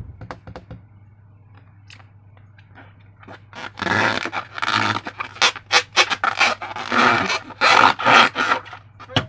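Slime being squeezed and worked by hand: scattered sticky clicks, then from about three and a half seconds in dense runs of wet squelching and crackling pops.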